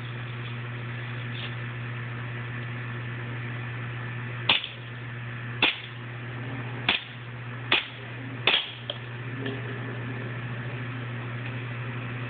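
WE 1911 gas blowback airsoft pistol firing five sharp shots, roughly a second apart, starting a few seconds in. A steady low hum runs underneath.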